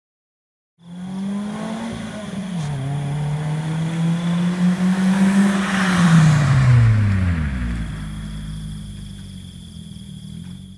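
Car driving past at about 80 km/h: the engine note dips about two seconds in and climbs again, grows loud with tyre and wind noise as the car passes close about six seconds in, then drops in pitch and fades as it moves away.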